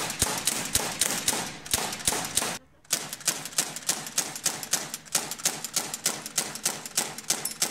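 Replica MP5 air gun firing in rapid strings of sharp cracks, about seven a second, with one short pause about two and a half seconds in.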